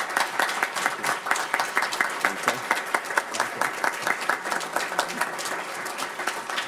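A roomful of people applauding after a speech: many hands clapping in a dense, continuous stream that eases slightly near the end.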